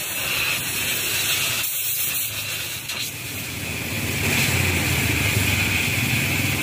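Gas welding torch flame hissing steadily while welding a seam on a steel motorcycle fuel tank. A low rumble joins the hiss about four seconds in.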